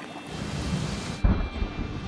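A rushing noise swells, then a sudden deep boom just past halfway.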